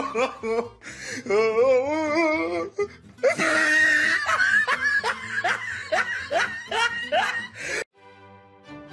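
A person laughing: a high, wavering giggle, then a long run of rising laughs that cuts off suddenly near the end.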